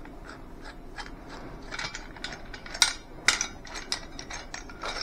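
Rhino USA collapsible survival shovel being folded down by hand: an irregular run of small metal clicks and clacks from its hinged blade and locking handle, with two louder clacks around the middle.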